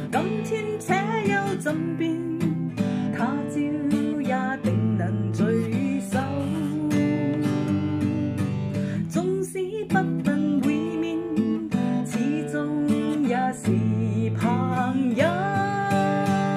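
Acoustic guitar strummed in a steady rhythm, with a woman singing a Cantonese song over it.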